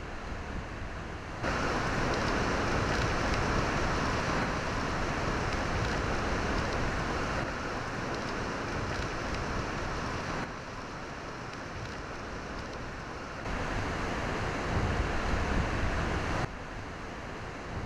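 Hurricane-force wind and heavy rain, a dense steady rushing noise. Its level jumps abruptly several times, louder about a second and a half in, softer near the middle, then louder and softer again, as different takes are cut together.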